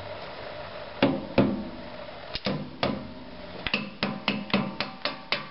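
A mallet taps the lower mounting bolt through the lower eye of a new rear shock absorber to drive it home. A few spaced blows come first, then a quicker run of light taps, about four a second, in the second half. Each tap rings briefly.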